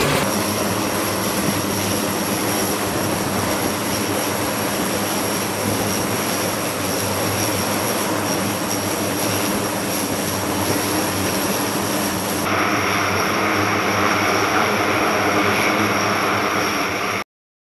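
The two T56 turboprop engines of an E-2D Advanced Hawkeye running with propellers turning: a steady propeller drone under a high turbine whine. The sound turns hissier about twelve seconds in and cuts off abruptly near the end.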